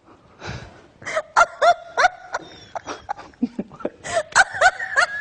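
People laughing in a run of short, loud, rising 'ha' bursts a few times a second, with several voices overlapping near the end.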